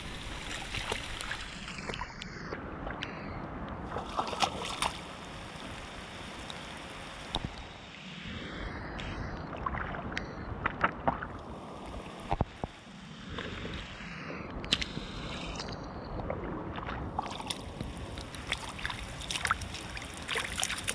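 Hands and a body sloshing and splashing in shallow muddy water, with many small scattered splashes and knocks.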